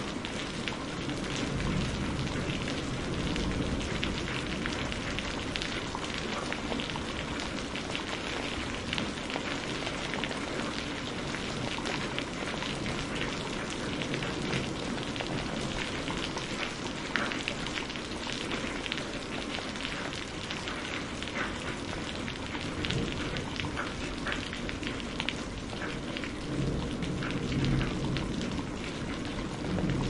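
Steady rain falling, with many individual drops ticking. Low rumbles of thunder swell up now and then, most strongly near the end.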